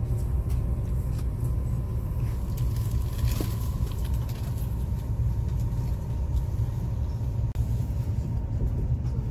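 Chinese high-speed bullet train running at speed, heard inside the passenger cabin as a steady low rumble with a faint steady whine above it.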